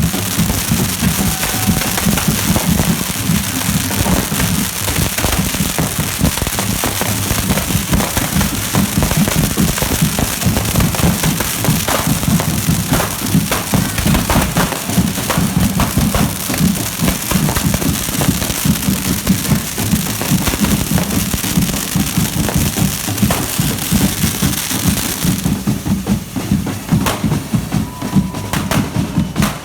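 Correfoc firework fountains spraying sparks with a steady loud hiss and scattered firecracker cracks, over drumming. The hiss stops about four seconds before the end, leaving the drums.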